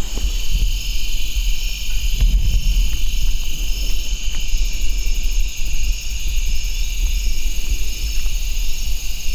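Evening chorus of crickets and other insects: a steady, high-pitched trilling in two layers, one of them pulsing about twice a second, over a steady low rumble.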